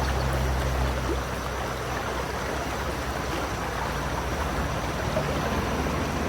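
Steady rushing of flowing water, an even unbroken wash with a low rumble beneath it.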